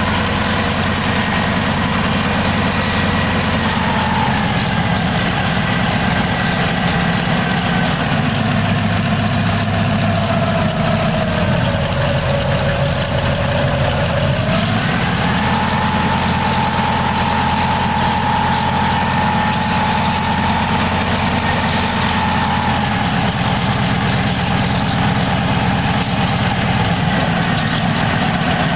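A B-24 Liberator's Pratt & Whitney R-1830 Twin Wasp radial engine running steadily on a test stand, propeller turning. Its whine sinks in pitch toward the middle, climbs back about halfway through, then holds steady.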